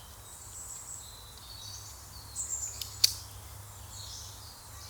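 Birds chirping with short, high gliding notes, over a faint low outdoor rumble. A single sharp click about three seconds in.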